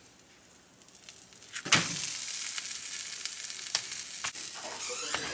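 Food frying in a hot pan: quiet at first, then a sharp knock about a second and a half in and loud, steady sizzling from then on, with a few clicks.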